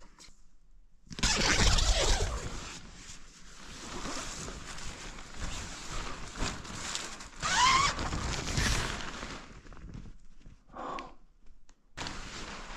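Rustling and handling noise as a person moves about in bedding and clothing, reaching for a hammer in the dark, with a short rising scrape about eight seconds in.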